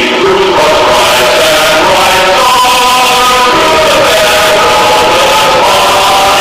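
Choral music: a choir singing long held notes that move from chord to chord.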